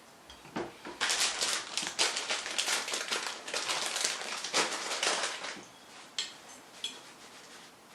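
Paper napkin rubbing and rustling against a shirt in quick strokes for several seconds, wiping off a barbecue sauce stain, followed by a few light clicks near the end.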